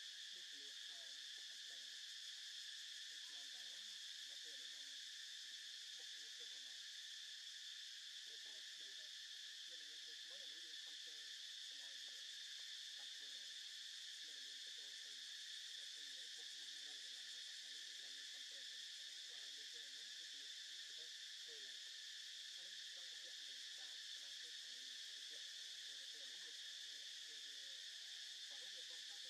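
Faint, steady high-pitched drone of an insect chorus in the trees, unbroken throughout, with faint irregular lower sounds underneath.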